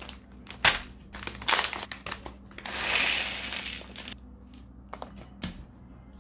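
Small plastic building-block pieces and their packaging being handled on a table: scattered clicks and rattles of the pieces, with a rustle lasting about a second and a half near the middle.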